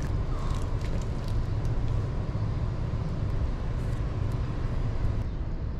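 Steady low outdoor rumble with a fluttering quality, with a few faint light clicks scattered through it.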